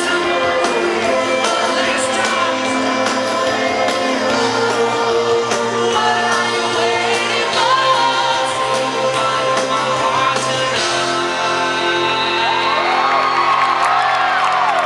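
Live rock band playing with a lead singer, amplified through a PA, with shouts and whoops from the crowd.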